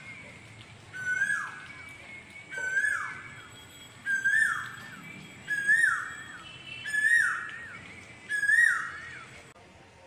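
Asian koel calling: six loud whistled 'ku-oo' notes about one and a half seconds apart, each rising, holding briefly, then dropping away, growing a little louder through the series. This is the male's song.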